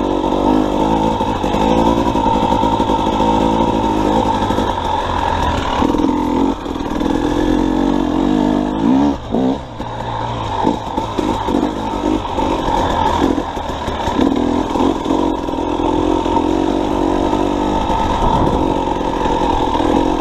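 KTM 300 XC-W two-stroke single-cylinder dirt bike engine running under changing throttle, its revs rising and falling, easing off briefly about halfway.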